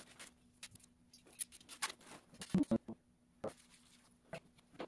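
Sped-up time-lapse audio of furniture assembly: quick, irregular clicks, clatters and rustles of small hardware and plastic bags being handled, over a faint steady hum.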